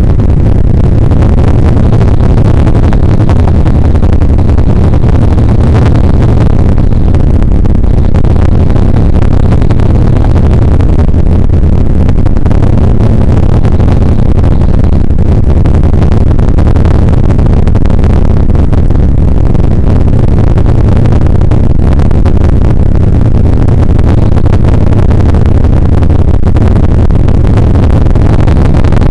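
Bell UH-1 Huey helicopter in flight, heard from inside the cockpit: loud, steady rotor and gas-turbine noise with a deep drone from the main rotor.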